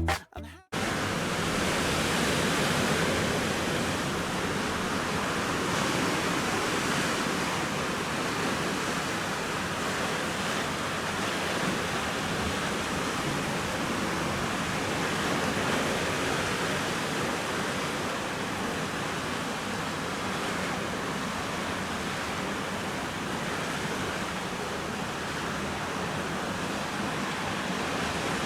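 Steady rush of ocean surf on a sandy beach. It cuts in just under a second in and runs evenly, with only slight slow swells.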